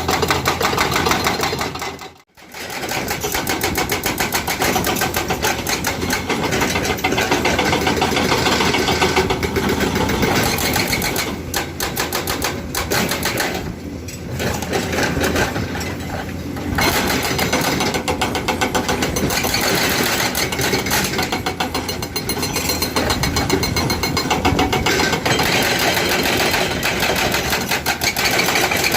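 Excavator-mounted hydraulic breaker hammering rock in rapid, continuous blows over the running excavator engine. The sound cuts out for a moment about two seconds in.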